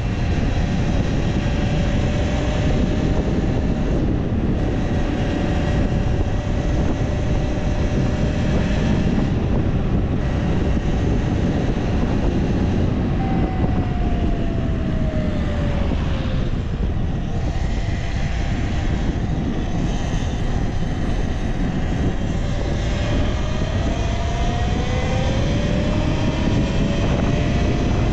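Talaria Sting R electric dirt bike being ridden: the electric motor's whine over a heavy rush of wind noise. The whine falls in pitch about halfway through as the bike slows, then rises twice near the end as it speeds up again.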